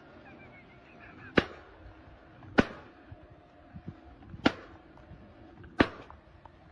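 Four sharp strikes or knocks, spaced one to two seconds apart, over a faint background.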